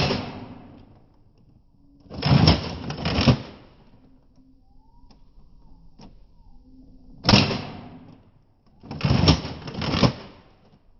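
Nerf Rival Atlas foam-ball blaster firing twice, once at the start and again about seven seconds in, each a sharp crack. A couple of seconds after each shot comes a pair of rasping mechanical strokes as the slide is worked back and forth to prime the next round.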